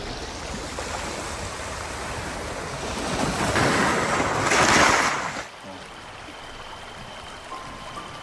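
Sea waves washing in, swelling to a louder surge from about three seconds in that stops abruptly about two seconds later, leaving a quieter steady hiss.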